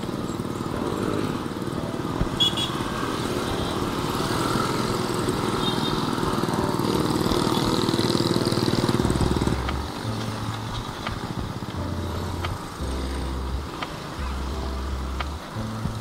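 A small motorcycle engine running steadily close alongside. About ten seconds in, the engine sound gives way to background music with a low bass line.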